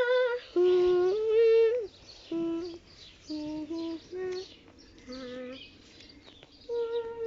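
A child humming a slow tune: a string of held notes, each steady in pitch, stepping up and down, louder in the first two seconds and softer through the middle.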